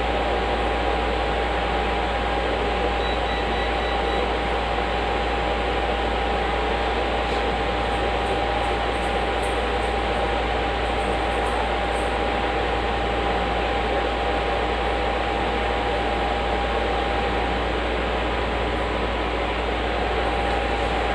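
Computer cooling fans, including the Sapphire RX 570 graphics card's single fan, running steadily as the test rig boots: a constant rushing noise with one steady tone through it and a low hum underneath.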